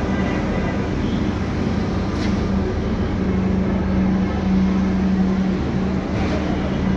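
Heavy construction machinery engine running steadily: a continuous drone with a low rumble and a humming tone that drops out briefly now and then.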